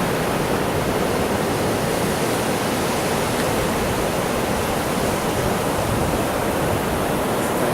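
Steady beach ambience: an even rushing noise that holds the same level throughout.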